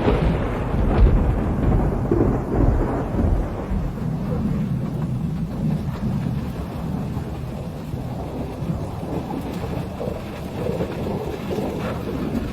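Thunderstorm: a deep rumble of thunder, loudest near the start, that rolls on and slowly eases, with rain falling.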